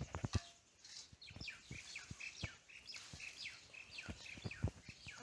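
A small bird chirping over and over, short falling chirps about three or four a second, with scattered light knocks.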